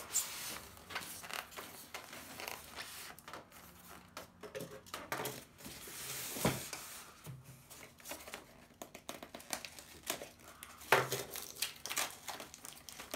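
Cardboard and plastic packaging being handled while a small box is opened: irregular crinkling and rustling with scattered clicks and taps, and a couple of louder knocks about six and a half and eleven seconds in.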